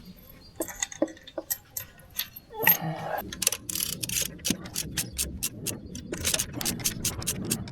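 Hand-tool work under a car's bonnet: a run of sharp metallic clicks and ticks, sparse at first, then quicker and more regular from about three seconds in.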